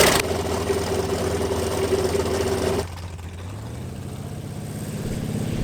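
Su-29's Vedeneyev M-14P nine-cylinder supercharged radial engine running. The first part is steady; about three seconds in the sound drops, then the engine note slowly rises in pitch and grows louder, ending in a short loud burst.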